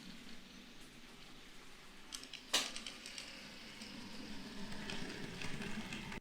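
N gauge model train running on the layout: a steady rattle of small metal wheels on the track with scattered light clicks, one sharp click about two and a half seconds in, and the sound growing louder toward the end.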